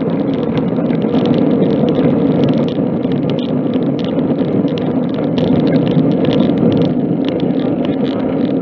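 Steady rush of wind and road noise from a road bike ridden along tarmac, buffeting the microphone of a camera mounted on the bike, with faint ticks and rattles over it.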